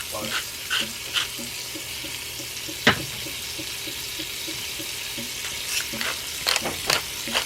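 Onions frying in butter in a pot, sizzling steadily, with a few clinks of stirring early on and one sharp knock about three seconds in.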